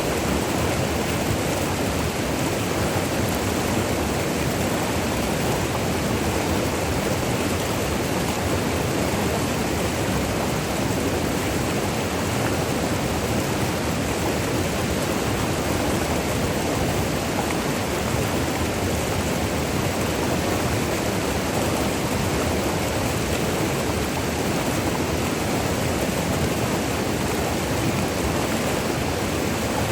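River water rushing over small falls and rapids: a steady, even roar of running water with no breaks.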